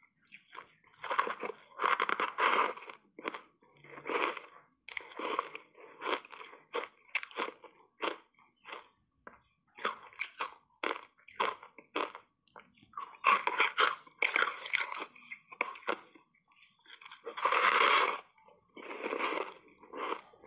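Ice blocks coated in matcha green tea powder being bitten and chewed: irregular crisp crunches and crackles, with heavier stretches of crunching about two seconds in and again toward the end.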